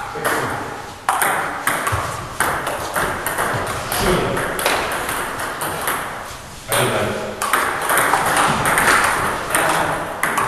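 Table tennis ball clicking off rackets and table in a quick rally, the hits coming close together, with a few louder strikes that ring on briefly in the hall.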